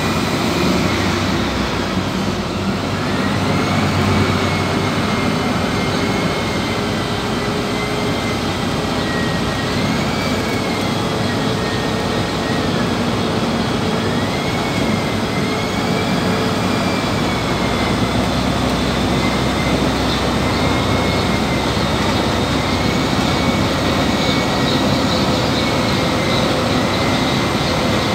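PAZ 320414-14 bus on the move, heard from inside the cabin: steady engine and road noise, with a thin whine that rises and falls in pitch.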